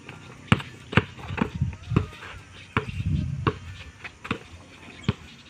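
Basketball dribbled on a packed dirt court: a series of about eight sharp thumps, roughly every half second to a second.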